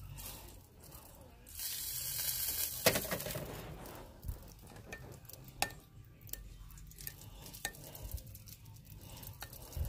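A utensil stirring and poking melting candle wax in a glass measuring cup, with a stretch of scraping about two seconds in and several sharp clinks against the glass, the loudest about three seconds in.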